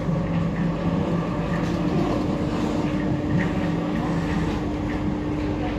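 MF 77 Paris Métro train running through a tunnel, heard from inside the car: a steady rumble of wheels on rail with a constant motor hum. A lower hum drops out about four and a half seconds in.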